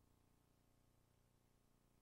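Near silence: faint tape hiss and low hum after the end-credits music has faded out.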